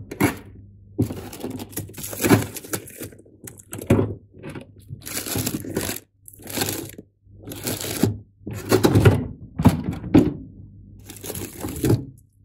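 Frozen food packages being shifted around in a freezer drawer: plastic bags crinkling and hard frozen packs clunking against each other and the plastic drawer, in a string of bursts about once a second over a steady low hum.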